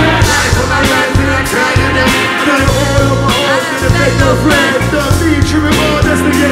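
Live band playing a hip-hop track: a steady drum beat and heavy bass, with melodic lines wavering above.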